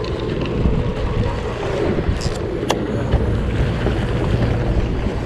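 Wind buffeting the microphone over the low rumble of a sportfishing boat and the sea around it, with a single sharp click near the middle.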